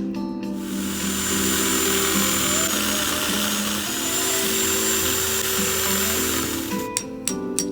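A power tool runs steadily for about six seconds, cutting the nylon wires on the motor field from an air conditioner's sealed compressor unit, starting just after the beginning and cutting off near the end. Guitar background music plays underneath.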